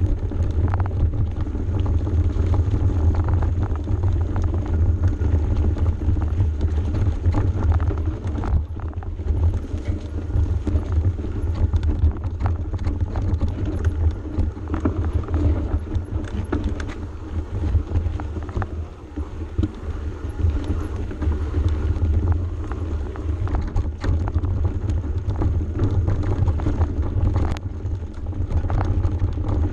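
Mountain bike descending a steep dirt single track, heard from a bike- or rider-mounted camera: steady low rumble of wind and trail on the microphone, with frequent knocks and rattles as the bike goes over roots and rocks.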